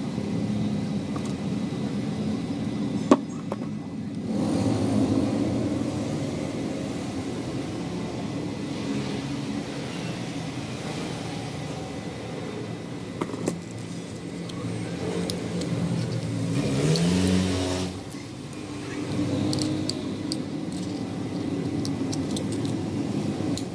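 Steady road-vehicle engine noise, with one engine revving up in a rising pitch about 17 seconds in. A sharp click comes about 3 seconds in.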